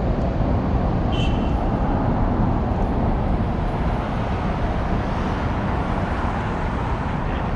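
Steady city road traffic noise, an even rush of passing cars with no distinct events.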